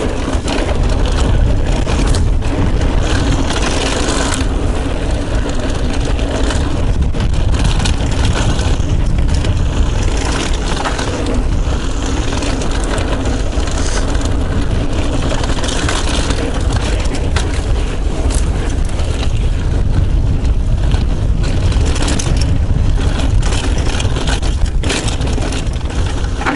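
Yeti mountain bike rolling along dirt singletrack, recorded from a chest-mounted action camera. A continuous, loud rumble of tyres on dirt and wind on the microphone runs throughout, with frequent clicks and rattles from the bike over bumps.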